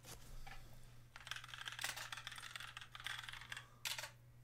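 Rapid clicking of typing on a computer keyboard, with a sharper click near the end.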